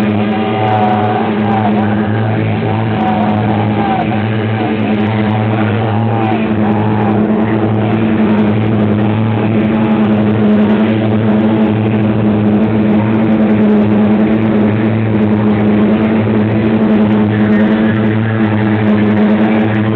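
Live electronic noise music played through effects gear: a loud, steady drone of one low note with many overtones. Warbling higher tones waver over it for the first seven seconds or so.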